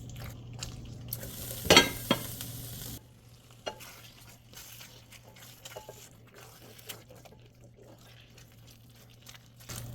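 A spoon stirs and scrapes thick curry gravy in a CorningWare pot, with a sharp clatter about two seconds in. After that it goes quieter, leaving scattered small pops and ticks as the gravy simmers on low heat.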